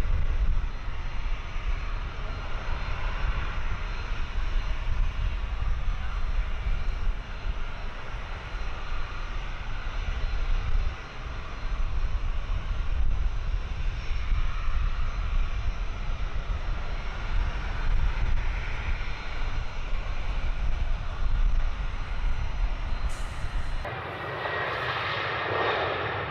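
Airliner engines running loud with a heavy low rumble as a plane passes. About 24 s in the sound changes abruptly to a brighter, higher engine noise with a steady whine.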